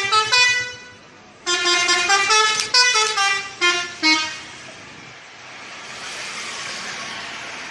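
Multi-tone 'telolet' bus horn playing a quick jingle of short pitched notes. It pauses for about half a second, plays a second run of notes, and stops about four seconds in. A steady rush of passing vehicle noise follows.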